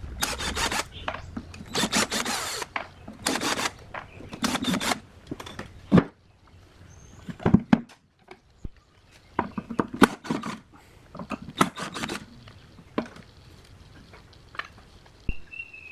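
Hand-tool work on a workpiece: about five rubbing strokes in the first five seconds, then scattered sharp knocks and clicks.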